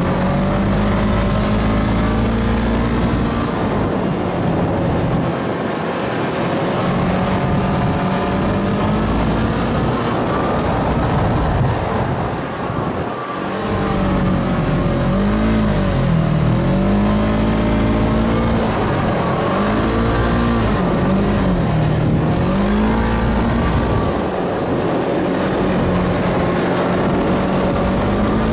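Side-by-side dune buggy's engine running, heard from the driver's seat: a steady drone at first, then the revs swing up and down several times in the middle before settling again.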